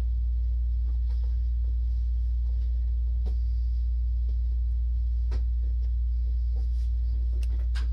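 A steady low hum, with scattered light clicks and rustles of packaging being handled inside a cardboard shipping box.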